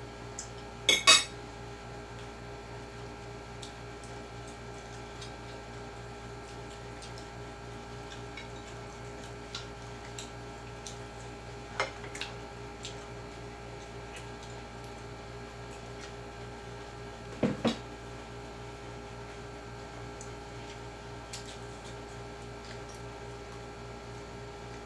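Cutlery clinking against dishes during a meal: a few sharp clinks, the loudest pair about a second in, another near the middle and a quick pair later, with fainter taps between, over a steady electrical hum.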